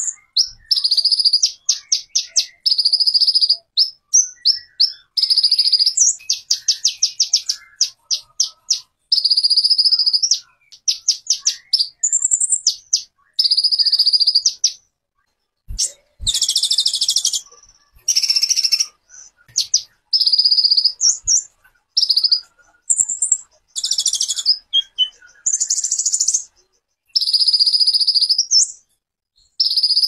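A songbird singing high-pitched phrases: rapid trills of repeated notes and longer held notes, in short bursts with brief pauses between.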